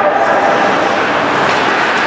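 Steady, loud din of an ice hockey arena during play, an even rushing noise with nothing standing out.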